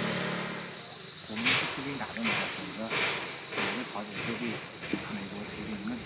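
Insects droning steadily at one high, unchanging pitch.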